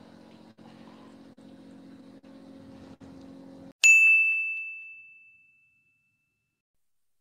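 A steady low hum, the boat's running machinery, cuts off just before a single bright bell-like ding, an editing sound effect at a title card, rings out and fades away over about two seconds.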